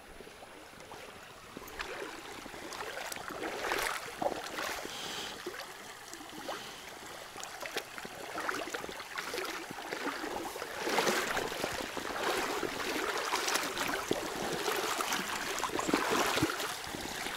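Shallow river riffle: water rushing over stones, getting louder over the first couple of seconds and then running on steadily, with scattered sharp clicks.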